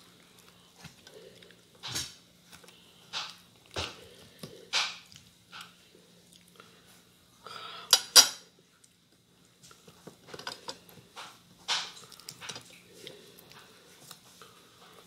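Crisp skin of a whole roast chicken crackling and tearing as it is pulled apart by hand, with scattered knocks against the plate; the loudest crackle comes about eight seconds in.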